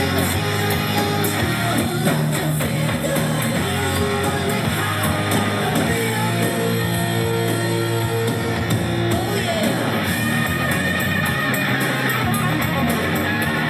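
Rock music with guitar playing steadily throughout.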